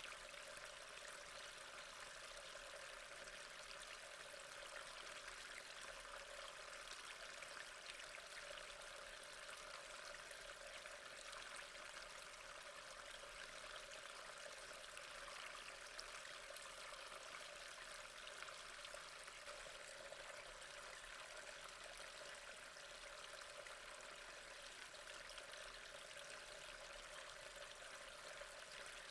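Gently flowing water, a steady soft trickle with no breaks.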